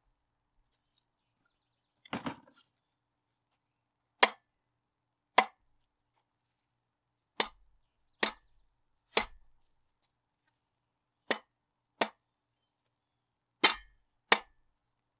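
Sharp clicks of a click-type torque wrench breaking over as the main cap bolts are torqued to spec: nine single clicks at uneven intervals, with a short clatter of metal about two seconds in.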